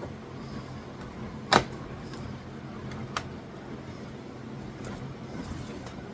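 A steady low hum, with one sharp knock about a second and a half in and a fainter click about three seconds in.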